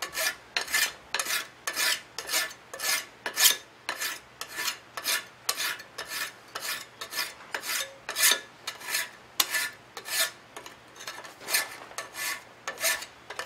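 Hand file rasping across a forged steel letter-opener blade clamped in a vise, in a steady rhythm of quick, even strokes, roughly two to three a second. The filing takes out the hammer marks left on the blade.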